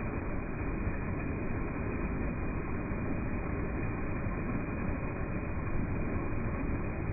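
Muddy floodwater pouring over a ledge in a broad sheet and crashing into a foaming pool: a steady, heavy rush of water.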